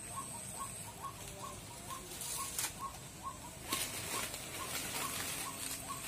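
A white-breasted waterhen's (ruak-ruak) call: one short note repeated evenly, about twice a second. Two short bursts of rustling break in, about two and a half seconds in and again about four seconds in.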